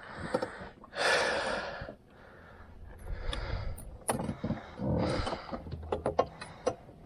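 Fishing tackle being handled in a boat: a rush of rustling about a second in, then a scatter of sharp clicks and light knocks.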